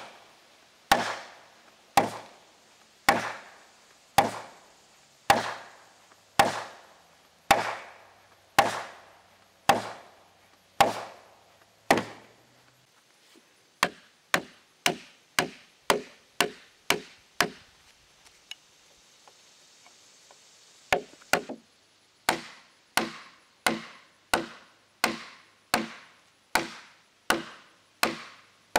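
Wooden mallet striking oak timber, driving the sill joints and their wedges home. Heavy single blows about once a second for the first dozen seconds, then quicker blows about two a second, with a short pause in between.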